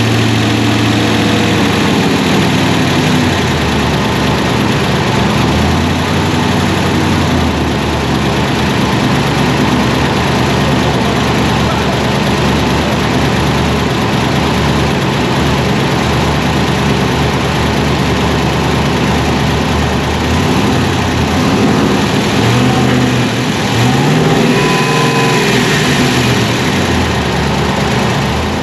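Supercharged V8 in a Chevy Silverado, fitted with an LT4 blower and a new cam, idling steadily on a fresh tune, with the revs rising briefly about three-quarters of the way through.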